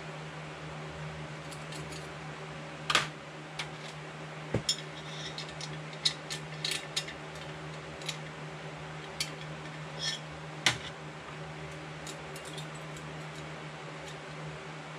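Small metal clicks and clinks of a hand tool and loose parts against a chainsaw, irregular, as fallen muffler gaskets are fished out from around the bolt. The sharpest clank comes about three seconds in and another about two-thirds through, over a steady low background hum.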